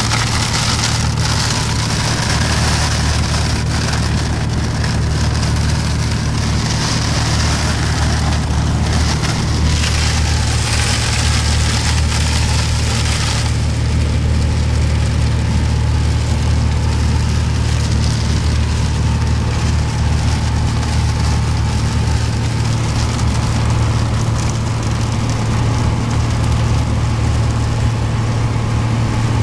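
Cabin sound of a Piper Dakota single-engine light aircraft in cruise: the piston engine and propeller run with a steady low drone. A hiss over it thins out about halfway through.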